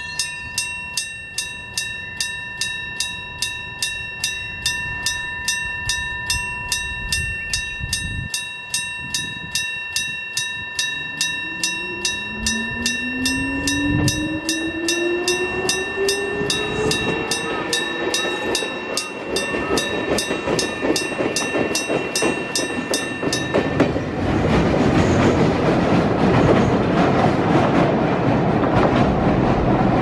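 A railway level crossing's electric bell, a hammer striking a gong, rings with rapid, even strokes and stops suddenly about 24 seconds in. Meanwhile an approaching electric train's whine rises in pitch, and near the end its running noise grows louder.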